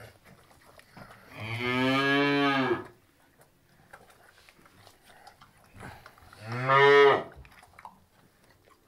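Two calf moos: a long call of about a second and a half, then a shorter, louder one about five seconds later.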